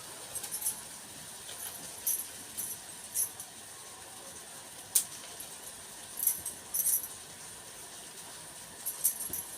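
Intermittent crisp rustling and crinkling from a newly unpacked garment and its packaging being handled, in short clusters, with one sharp click about five seconds in.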